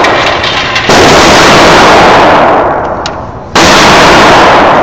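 Gunshots in an indoor shooting range: loud bangs about a second and three and a half seconds in, each followed by a long echoing tail, with the fading tail of an earlier shot at the start. They are loud enough to overload the phone's microphone.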